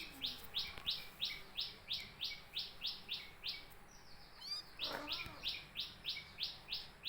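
Bird chirping rapidly and steadily, about four short high chirps a second. The chirping breaks off about two-thirds of the way through for a quick rising call and a lower call, then starts again.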